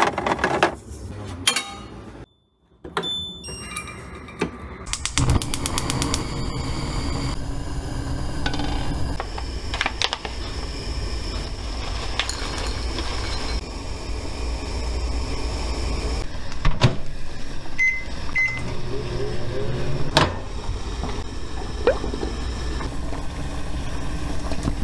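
Kitchen food-preparation sounds: eggs knocked and handled in a refrigerator's plastic egg tray, dry oatmeal poured from a pouch into a ceramic bowl, and water boiling in a stainless saucepan over a steady hiss. Two short beeps sound about two-thirds of the way through.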